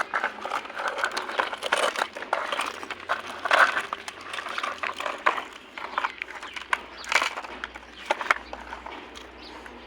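Irregular rustling and crinkling with many small clicks, thinning out near the end.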